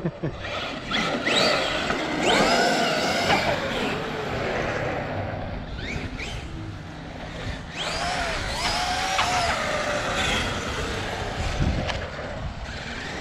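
Castle 1717 1650kv brushless motor and mod 1 gearing in a Traxxas X-Maxx RC monster truck on 8S, whining up in pitch several times as the truck accelerates hard, then dropping away between runs.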